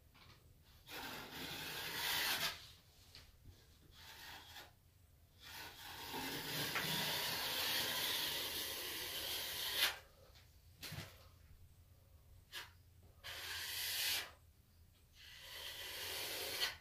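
Metal plastering knife scraping wet plaster along a plasterboard corner over paper tape. A series of separate strokes, the longest about four seconds near the middle.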